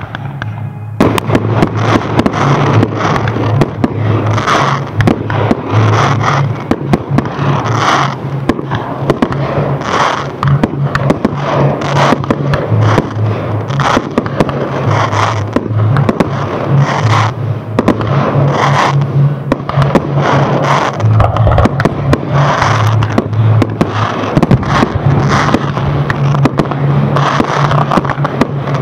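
Fireworks display: a dense, continuous barrage of bangs and crackling from aerial shells bursting, starting about a second in.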